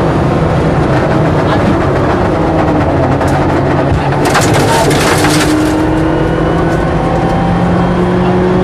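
Mitsubishi Lancer Evo rally car's turbocharged four-cylinder engine running hard under load, heard from inside the cabin, its note holding and slowly rising. About four seconds in, a dense clatter lasts for about a second.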